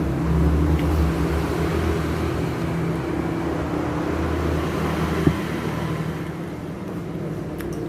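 Motor vehicle engine running close by, a steady low hum over general road-traffic noise. A single short knock about five seconds in.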